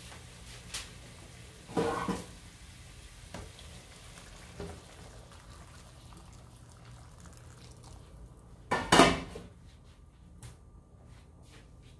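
Hot water being poured into a hot nonstick frying pan of browned beef, with a sizzling hiss and loud clatters of pot against pan about two seconds in and again near nine seconds. The sizzle falls away after about eight seconds as the pan fills with water.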